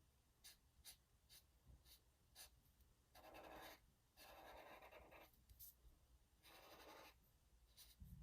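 Faint scratching of a broad-tip marker colouring on paper: a few light taps, then three longer strokes from about three seconds in.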